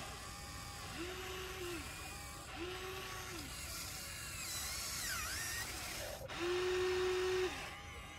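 Electric motors of a Huina 1593 remote-control excavator whining as the boom, stick and bucket move. Each move spins up to a steady pitch, holds, and spins down: three short runs of about a second, then a longer, louder run near the end.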